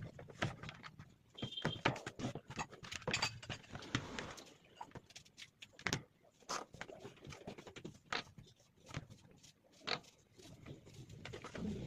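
Irregular small clicks, taps and knocks of objects being handled, with a short high beep about a second and a half in.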